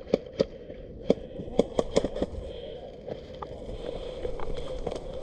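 A run of irregular, sharp clicks and pops over a steady low hum.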